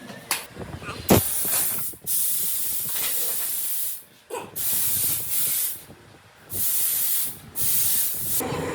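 Pressurised spray hissing in repeated bursts, about five of them, each lasting from half a second to two seconds, with short breaks between.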